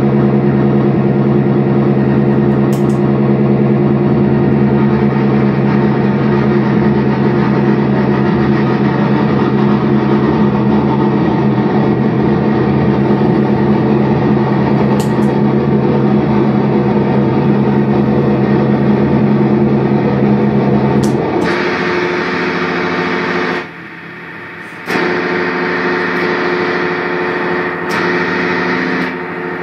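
Heavily distorted electric guitar through effects, holding a dense sustained drone of stacked notes. About 21 seconds in, the low notes drop away and the sound shifts to higher, brighter tones. A couple of seconds later it falls back sharply for about a second, then resumes.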